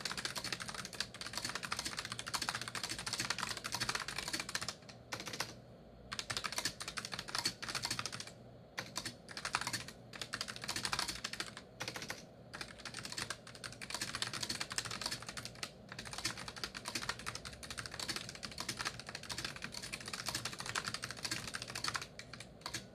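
Rapid typing on an NCR RS 3000 point-of-sale keyboard with low-profile Keytech inductive key switches, a dense run of quick key clicks with a few brief pauses.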